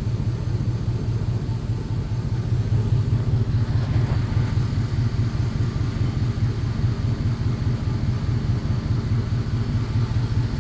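Engine idling steadily: a constant low rumble with no change in speed.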